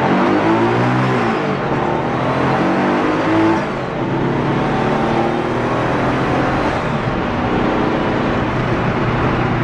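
Turbocharged 2.4-litre air-cooled Volkswagen flat-four in a 1973 VW Thing pulling under way, the revs climbing and falling in the first second or so, easing off briefly about three and a half seconds in, then running steadily.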